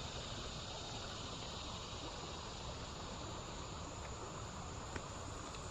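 Steady insect chirring, a continuous high drone, over the even rush of creek water, with one faint tick about five seconds in.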